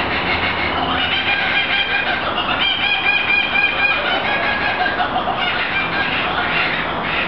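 Laughing kookaburra calling its laugh: a run of rapid, rhythmic pitched notes starting about a second in and loudest in the middle, then a shorter second bout near the end.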